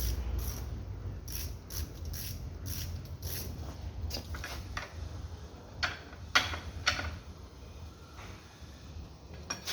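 Metal tool or mechanism clicking: a run of sharp clicks, about two or three a second, then a few louder, separate clanks about six and seven seconds in and again near the end, over a low steady hum.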